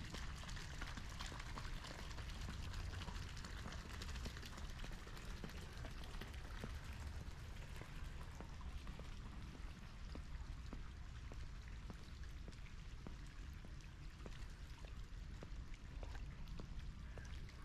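Garden fountain water splashing steadily, a dense patter of small drops over a low rumble.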